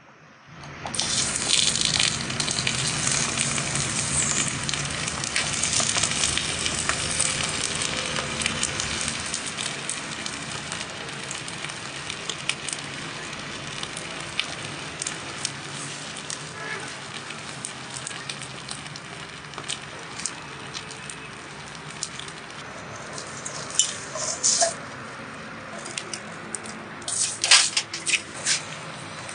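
Fish sizzling under molten lava: a dense sizzling hiss that starts about a second in, is loudest over the first few seconds and slowly dies down, with scattered crackles and pops and a few louder sharp clacks near the end.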